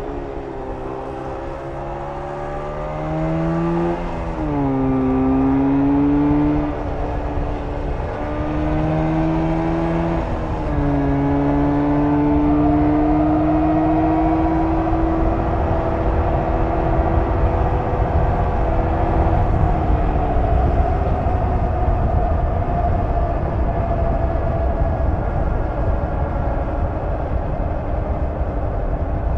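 1994 Jawa 350's two-stroke parallel-twin engine accelerating through the gears: its pitch climbs, drops sharply at each of three gear changes, and climbs again. In the second half the engine note sinks under a steady rush of wind and road noise at speed.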